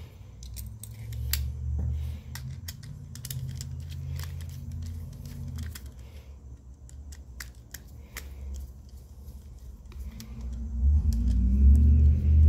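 Small metal clicks and clinks of punches, screwdriver and parts against a vintage New Britain ratchet head as its cover plate is fitted and the plate screw is driven in. A low rumble runs under the clicks early on and comes back louder near the end.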